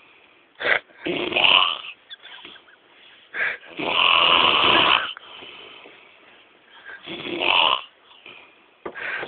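A man snoring heavily in his sleep after a lot of drinking. The snores come in uneven bouts: a short snort, a snore about a second in, another short snort, the longest and loudest snore from about four to five seconds in, another near seven seconds, and one starting near the end.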